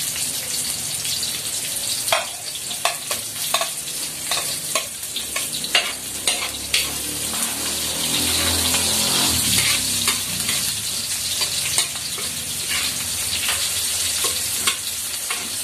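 Chopped onions sizzling in hot oil in a steel wok, stirred with a metal spoon that scrapes and clinks against the pan again and again.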